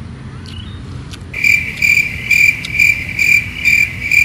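Cricket chirps: a loud, clear high chirp repeating evenly a little over twice a second, starting about a second in after faint background noise. It is a crickets sound effect laid over the track in editing.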